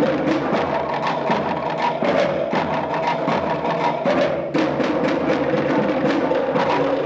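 Dance music driven by a fast, even drum beat, with steady held tones above the drumming.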